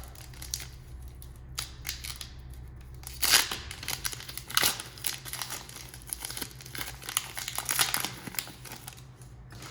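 Trading-card pack wrapper being torn open and crinkled by hand, in a string of short crackling bursts over a steady low hum.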